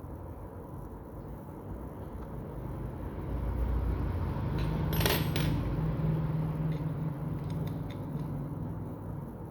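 A low mechanical hum that swells and fades, with a quick cluster of metallic clinks about halfway through and a few lighter clicks near the end.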